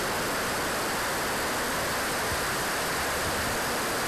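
Steady, even rushing noise of the Swiwin SW60 turbine-powered RC jet in flight, turbine and airflow blended with no distinct whine.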